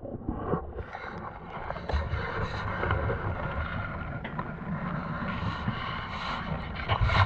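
Wind on the microphone and the wash of a sailboat moving through the water under sail, a steady rushing noise with a few light knocks.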